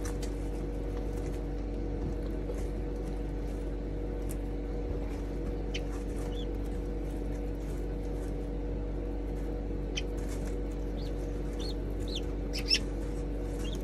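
Guinea fowl keets peeping now and then: short, high, thin chirps scattered through, one near the end louder than the rest, over a steady low electrical hum.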